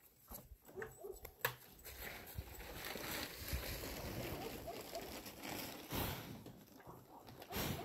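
Holstein calf snuffling and breathing right at the microphone as its muzzle nuzzles the phone, with a few light knocks in the first second and a half and short loud puffs or rubs about six and seven and a half seconds in.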